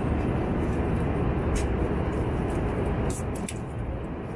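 Steady in-flight cabin noise of an Airbus A320, a constant rush of air and engine noise. A few light clinks and clicks sound from the drinks trolley, about a second and a half in and around three seconds in.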